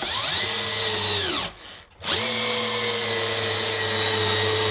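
Cordless drill/driver with a socket bit driving a 3/8-inch lag bolt through a steel pipe into the wall. The motor whines up, runs for over a second and winds down. After a short pause it runs again steadily under load.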